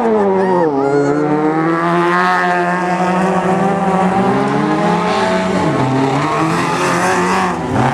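Autocross touring car engines, 1400 cc class, running hard at high revs on a dirt track. The engine note falls and climbs back a few times as the drivers lift off and shift gears.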